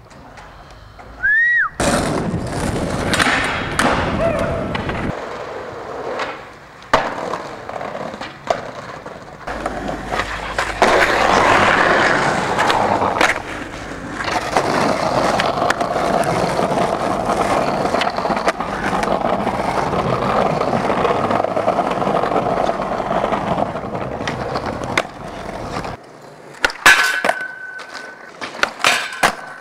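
Skateboard wheels rolling over pavement, broken by sharp clacks and slaps of the board popping and landing. A long stretch of steady rolling runs through the middle, and a brief high squeak comes twice near the end.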